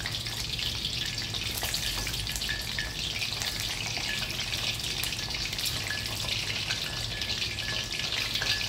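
Breadcrumb-coated chicken cutlet deep-frying in hot oil in a steel wok: a steady crackling sizzle of bubbling oil.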